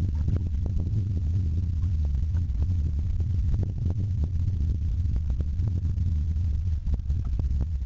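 Steady low rumble with scattered light splashy ticks, picked up by a camera mounted on the bow of a kayak moving down the river: water against the hull mixed with wind on the microphone.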